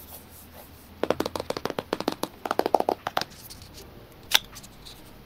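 Hands handling Apple Watch packaging: a fast run of small clicks and taps for about two seconds, then one sharp click near the end.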